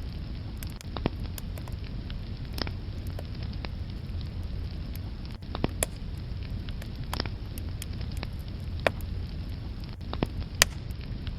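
Wood fire burning: a steady low rumble with scattered sharp crackles and pops from the logs, a few louder snaps in the second half.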